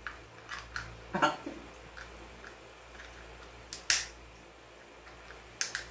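Eating sounds: scattered short clicks and snaps of cooked crab shells being cracked, picked at and sucked by hand and mouth, loudest as a close pair about four seconds in and again just before the end, over a low steady hum.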